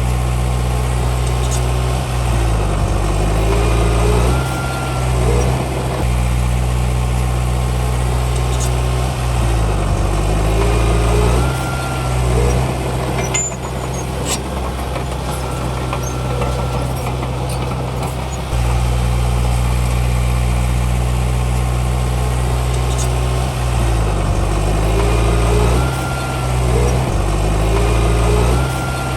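Komatsu D31P bulldozer's diesel engine running steadily, its pitch dipping and recovering several times as it works under load pushing soil. A higher whine comes in briefly with each change.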